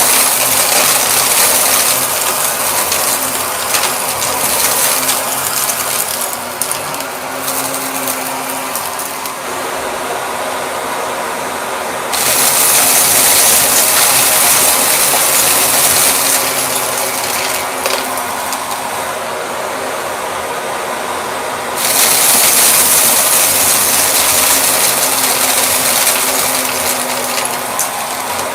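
Shark vacuum cleaner running continuously, its airy hiss dropping back and then swelling louder for several seconds about twelve seconds in and again about twenty-two seconds in, with scattered small clicks and rattles throughout.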